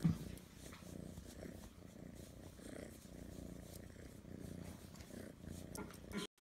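Siamese cat purring close to the microphone: a steady, low, fluttering rumble.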